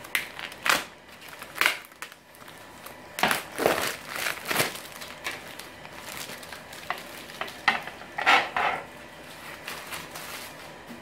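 Clear plastic packaging bag crinkling and rustling in irregular bursts as it is pulled off the plastic panels of a dish antenna.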